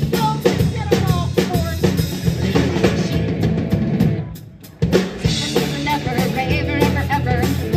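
Live rock band playing, the drum kit to the fore with kick, snare and rimshots over low sustained notes. About four seconds in the music sags away, and just under five seconds in the band comes back in sharply on a hit.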